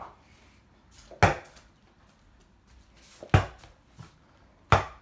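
Three loud thuds about a second and a half apart, each ringing briefly: a small rubber ball bouncing hard off a hard surface.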